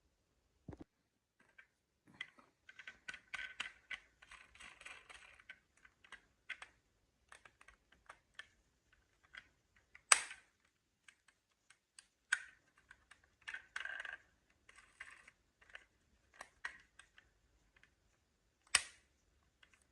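Marbles rolling and clacking through a Cuboro wooden block marble run: scattered clicks and short rattling runs, with two sharper, louder clacks about halfway through and near the end.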